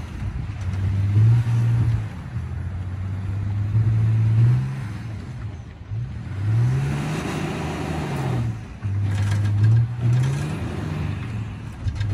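Pickup truck engine revving up and easing off again and again, about five rises in pitch, as the truck tries to drive out of a snowbank where it is stuck.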